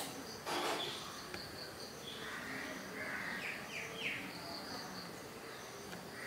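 Birds chirping outdoors, a cluster of short chirps and quick falling call notes in the middle, over a steady hiss of outdoor background noise. A brief rush of noise comes about half a second in.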